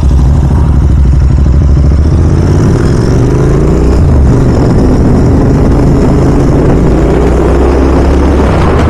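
Royal Enfield Continental GT 650's parallel-twin engine with a Red Rooster aftermarket exhaust, heard from the rider's seat while riding. It pulls away, rising in pitch, then drops back about four seconds in as it shifts up, and runs on steadily.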